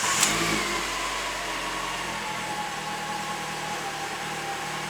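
Alfa Romeo GT 2.0 JTS four-cylinder petrol engine catching just after being cranked, then settling into a steady idle, with a faint whine that falls slowly in pitch as the revs come down.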